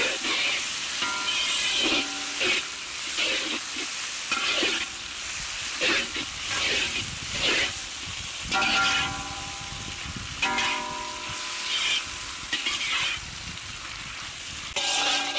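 Sliced tomatoes and onions sizzling in a large metal kadai while a steel perforated ladle stirs them. The ladle scrapes the pan in repeated strokes, some with a brief metallic ring, over a steady frying hiss.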